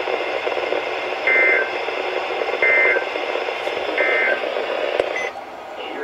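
NOAA Weather Radio receiver sounding three short EAS end-of-message data bursts about a second and a half apart over steady broadcast hiss, the signal that the warning message is over. The hiss drops away near the end.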